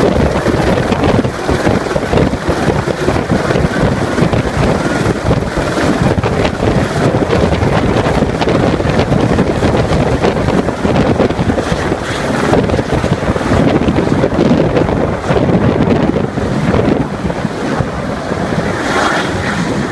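Helicopter running at close range: loud, steady rotor and engine noise.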